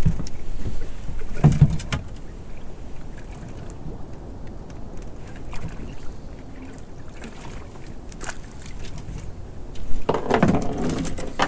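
Water lapping against the hull of a small open boat drifting at sea, with scattered clicks and knocks from handling fishing tackle. There is a sharp knock about a second and a half in, and louder handling noise near the end.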